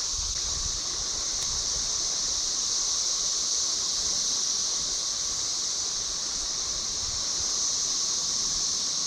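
Cicadas chorusing: a steady, shrill high drone that doesn't rise or fall.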